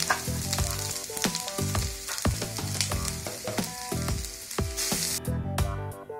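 Grated coconut sizzling in hot ghee in a frying pan, a steady hiss that cuts off abruptly about five seconds in, over background music with a regular beat.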